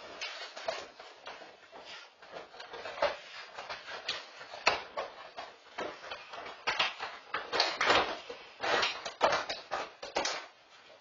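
A Dogue de Bordeaux handling a box of cinnamon rolls with his mouth: irregular crackling, rattling and knocking as the box is carried, dropped and pushed about on the rug, busiest in the second half. Picked up by a home security camera's microphone.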